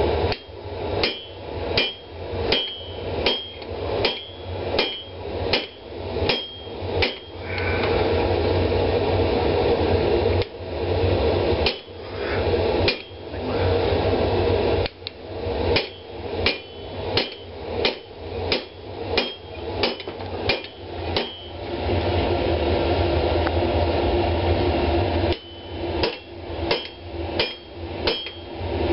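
Hand hammer striking red-hot steel on an anvil in runs of several blows, about one and a half a second, with short pauses between runs. Many blows leave a brief ring from the anvil, over a steady hum.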